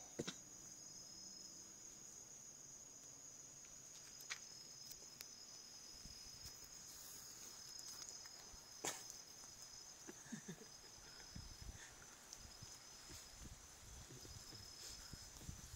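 Faint, steady, high-pitched chirring of night insects, with a few sharp clicks and low thumps from handling the recording phone.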